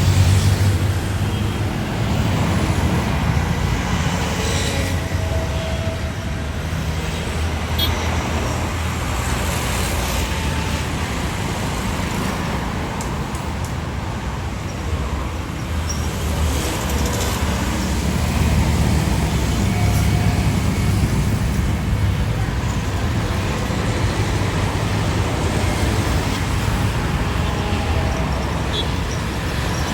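Steady jet rumble from Airbus A320 airliners on landing approach, mixed with traffic noise. It is loudest right at the start and swells again about twenty seconds in.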